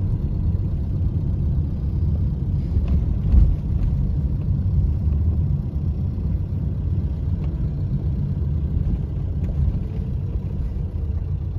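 Dodge Neon Sport Coupé's engine and road noise heard from inside the cabin, a steady low rumble while driving slowly, with a single thump about three and a half seconds in.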